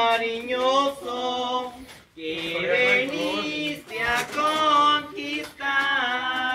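A group of people singing a Spanish devotional hymn, with a brief break for breath about two seconds in.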